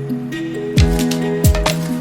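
Background music: a beat-driven instrumental with a stepping melody, kick drum and hi-hats, the beat coming in a little under a second in.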